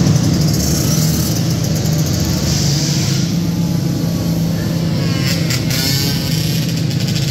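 Small youth dirt bikes of the 50/65cc class running laps on a dirt track, their engines revving up and down as they go round the turns.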